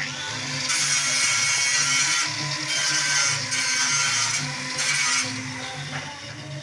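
A power tool running in three bursts with a rough hiss, over background music.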